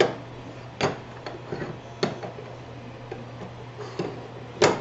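Scattered sharp clicks and light knocks of an Ender 3 extruder assembly and aluminium extrusion being handled and set against each other, the loudest near the end, over a steady low hum.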